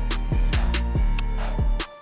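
Background music with a steady drum beat: deep kick drums that drop in pitch, quick hi-hat ticks and a low bass line. The music cuts out briefly near the end.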